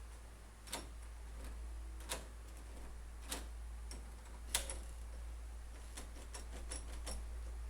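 Doorknob being turned and released over and over, its new tubular door latch snapping in and out with sharp separate clicks at uneven intervals as it is tested after fitting.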